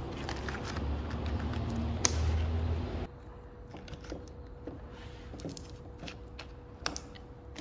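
Handling noise as prismatic LFP battery cells and plastic flashing sheets are fitted into a steel clamp bracket: a louder rustling and scraping with a sharp click about two seconds in, stopping abruptly at about three seconds, then quieter scattered taps and knocks.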